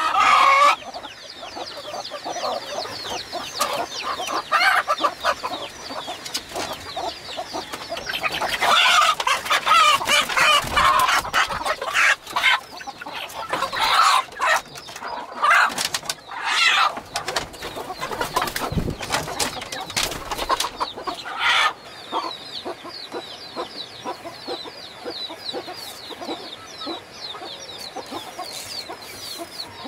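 Chickens clucking, with loud bursts of calls several times over a steady high chirping, and a couple of low thumps.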